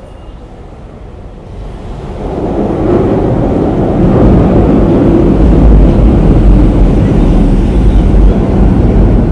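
Wind buffeting the microphone of a bicycle-mounted camera as the bike gathers speed: a loud, low rumble that swells over about two seconds and then holds.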